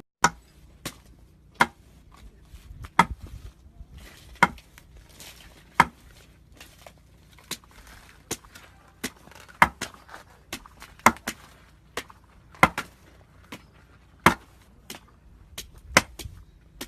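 Golf clubs striking balls: a string of sharp clicks, roughly one a second at uneven intervals and of uneven loudness, as from several golfers hitting at a driving range.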